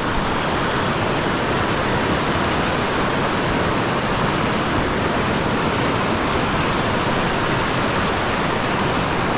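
River rapids rushing over rocks: a steady, even noise of whitewater close by.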